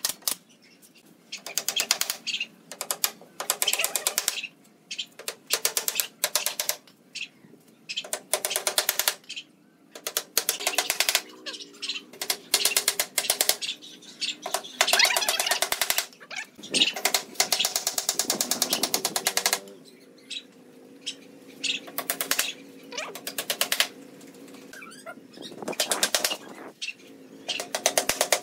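Repeated bursts of rapid rattling clicks, each a second or two long, from a tool working pallet-wood slats on the frame.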